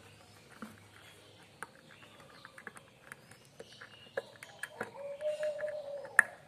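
Light clicks and taps of small metal parts being handled (screws and wire terminals on a brass heater-element cup), with one sharp click near the end. A pigeon coos once, a long low coo about five seconds in.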